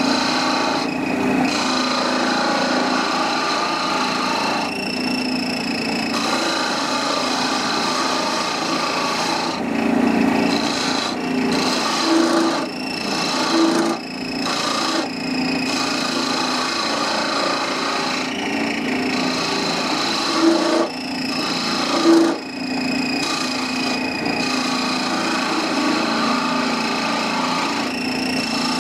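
Wood lathe running with a skew chisel cutting into the spinning wooden blank: a steady motor hum under a rasping cutting noise that stops and starts several times as the tool comes off the wood. A few brief louder bumps come in the middle.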